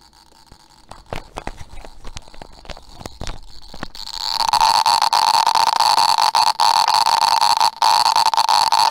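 A clip-on microphone knocking and rubbing as it is handled for a few seconds. Then, from about four seconds in, a loud, steady hiss from an avalanche-noise generator (a reverse-biased transistor junction amplified by an LM386) playing through a small speaker. The hiss cuts out briefly twice.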